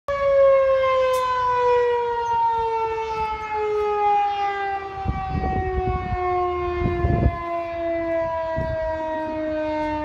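Federal Signal 2001-130 electromechanical outdoor warning siren sounding a single steady wail whose pitch slides slowly lower throughout, during a siren test. A few low thuds come partway through.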